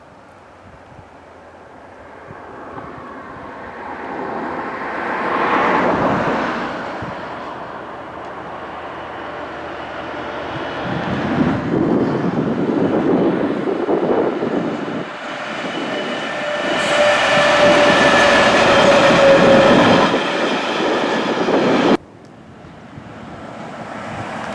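A train passing on the line: a rush of wheels on rail that swells and fades, with a steady whine rising over it late on. It breaks off abruptly near the end, and another train's noise starts building up again.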